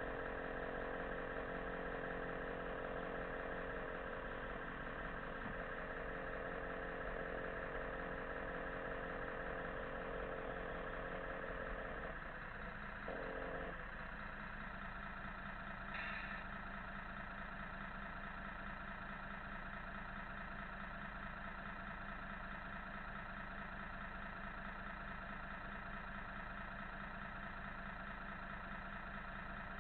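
RC model truck's engine-sound module playing a steady truck-engine idle. The tone changes about 13 seconds in, and a brief high chirp sounds about 16 seconds in.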